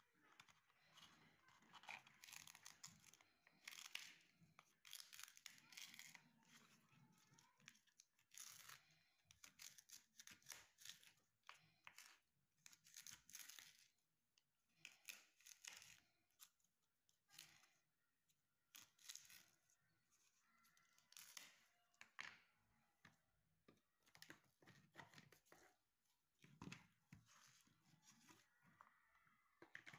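Fresh cabbage leaves being torn apart by hand: a run of short ripping and crunching sounds at irregular intervals.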